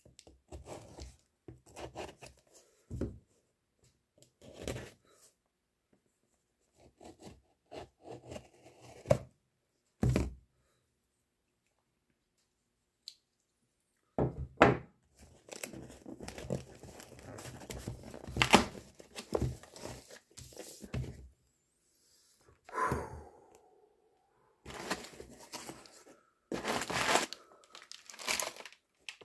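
Cardboard shipping box being opened by hand: a knife slitting packing tape, tape tearing, and the cardboard flaps and contents rustling and crinkling in irregular bursts, with a quiet pause of a few seconds about halfway.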